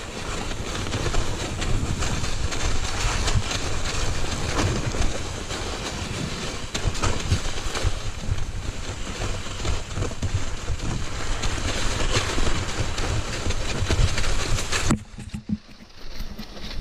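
Riding noise from a mountain bike on a snowy trail: a steady rushing noise from the tyres rolling over snow, with frequent knocks and rattles. About fifteen seconds in it drops away suddenly to a much quieter stretch, then picks up again at the very end.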